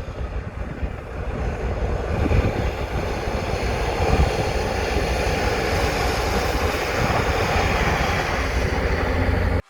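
Off-road vehicle's engine running steadily with a deep rumble, then cutting off abruptly near the end.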